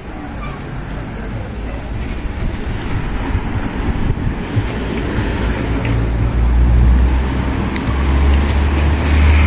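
Road traffic rumbling steadily, with a motor vehicle's engine hum building and getting louder over the last few seconds.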